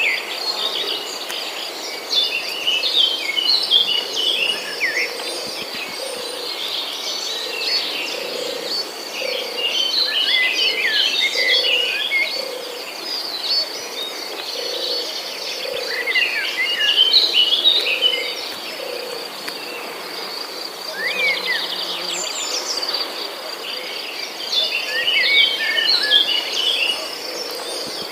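Outdoor natural chorus: insects keep up a steady high trill while a bird sings bursts of rapid chirping notes every few seconds, over a lower call repeated about twice a second.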